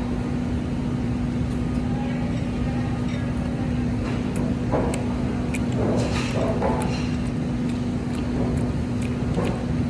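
Steady low rumble with a constant hum, and a few light clicks and faint voices in the background.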